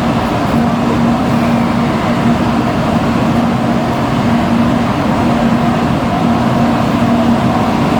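Steady, loud vehicle noise, with a low tone that comes and goes.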